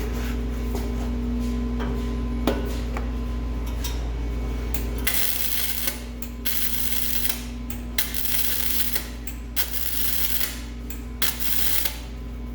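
Electric welding arc crackling in stop-start bursts from about five seconds in, each under a second to about a second long with short gaps, as a flange is welded onto an exhaust pipe. Before that there is a steady hum and one sharp click.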